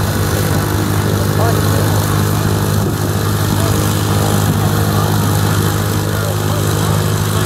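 A light aircraft's small piston engine running steadily at low power, a constant low drone, with people's voices faintly in the background.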